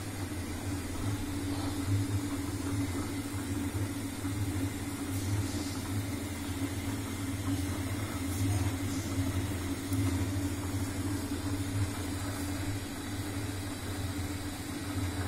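Long cotton wick making machine running: a steady motor hum with a few faint ticks.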